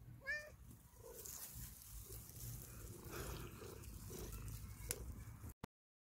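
A cat meows once, briefly, followed by soft rustling in the grass while the cat is stroked.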